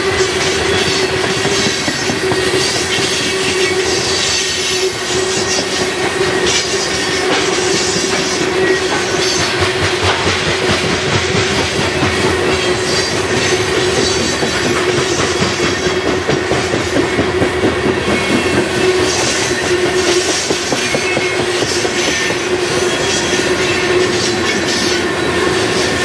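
Loaded-length coal train's open-top cars rolling past, steel wheels clicking over the rail joints in a steady clickety-clack, with a continuous steady tone from the wheels and rails over the rolling noise.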